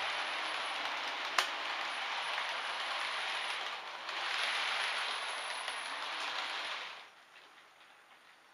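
Model freight train running on the layout's track: a steady rattle of wheels and wagons on the rails with motor noise, and one sharp click about a second and a half in. The rattle drops off sharply about seven seconds in, leaving faint, even ticking.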